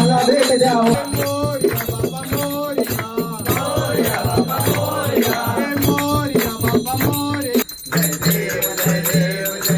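Devotional bhajan: a voice singing over jingling, rattling percussion. It breaks off for a moment about eight seconds in, then goes on.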